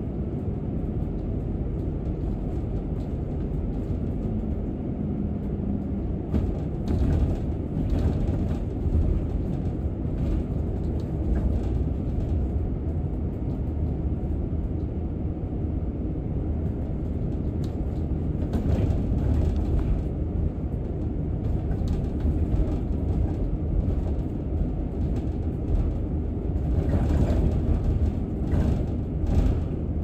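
A bus on the move: a steady low rumble of engine and road noise, with short rattles and clatters now and then, several of them close together near the end.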